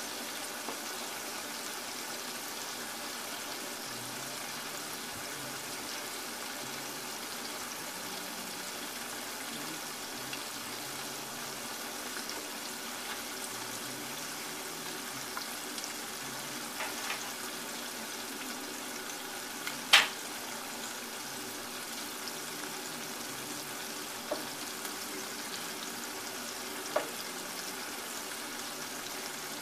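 Chicken gizzards deep-frying in a pot of hot oil: a steady bubbling sizzle. A few sharp clicks cut through it, the loudest about two-thirds of the way in and two smaller ones near the end.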